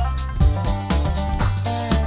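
Background music with a steady beat: drums about twice a second over a bass line, with a lead that slides between notes.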